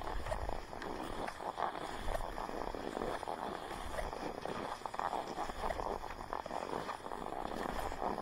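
Skate-skiing on a groomed snow track: cross-country skis swish and scrape on the snow in irregular strides, over a steady low rumble.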